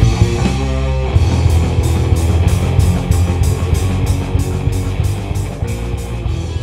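Rock music soundtrack with electric guitar and a steady drum beat that comes in about a second in.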